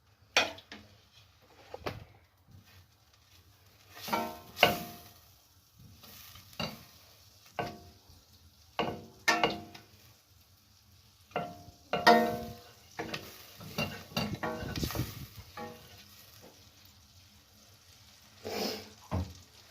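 Butter melting with a faint sizzle in a pot, stirred with a spoon that knocks and scrapes against the pot at irregular intervals, some knocks ringing briefly.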